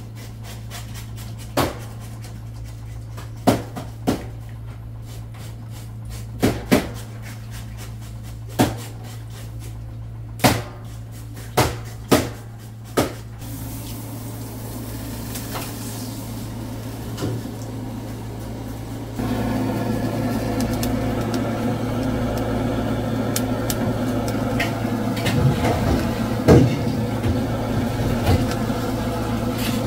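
Sharp knocks and clicks as fish fillets are set down on a metal tray, over a steady low hum. About halfway in, a handheld butane torch on a gas canister starts up with a steady rushing hiss as it sears the skin of mackerel fillets; it gets louder about two-thirds of the way in.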